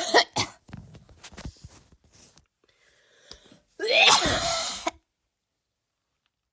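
A person giving forced, deliberate coughs, trying for a barking cough that the uploader says her lungs can't quite make. There are short harsh coughs at the start and breathy sounds in between, then one longer harsh cough of about a second, about four seconds in.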